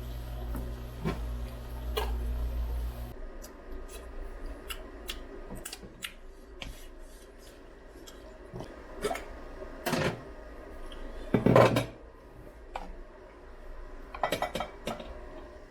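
Kitchen utensils and dishes clinking, knocking and scraping: a scattering of small knocks, with louder clatters about ten seconds in, again a moment later, and near the end. A steady low hum stops about three seconds in.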